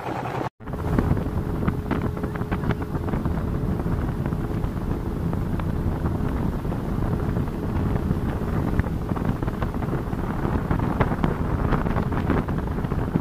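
Speedboat under way: a steady rush of engine and water, with wind buffeting the microphone. The sound drops out for an instant just after the start.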